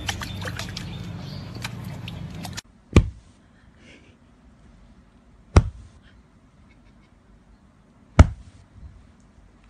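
Water splashing and trickling as a puppy paws at a water-filled stone basin, cutting off suddenly. Then three sudden sharp thumps come at even spacing, about two and a half seconds apart.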